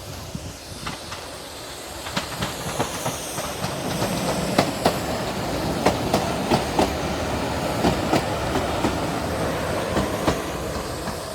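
Heritage diesel multiple unit running past on the rails, its wheels clacking over rail joints in a string of sharp clicks over a low rumble, growing louder a couple of seconds in.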